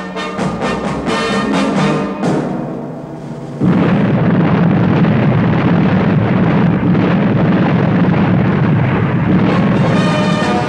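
Brass-led orchestral theme music. About three and a half seconds in, a sudden loud explosion sound effect takes over and runs on for about six seconds as a dense, continuous blast. The brass music returns near the end.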